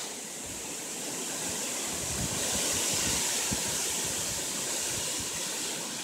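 Strong wind gusting, a rushing hiss that swells over the first few seconds and eases off toward the end, with some low rumbling buffeting on the microphone. A brief click right at the start.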